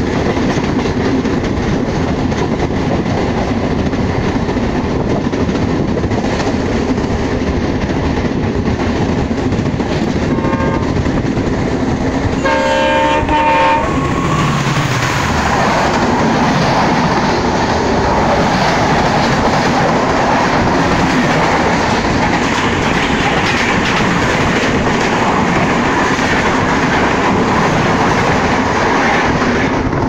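Indian Railways train running on the rails with steady clickety-clack, heard from aboard. A locomotive horn sounds a brief toot about ten and a half seconds in, then a stronger blast of about a second and a half; from about fourteen seconds a train passing close on the next track adds a loud rushing noise.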